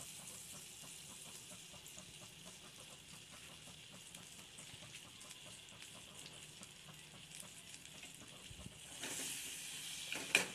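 Butter melting in an aluminium saucepan over a gas flame, sizzling faintly and steadily with fine crackles as it bubbles. Near the end the sizzle briefly gets louder and there is one sharp click.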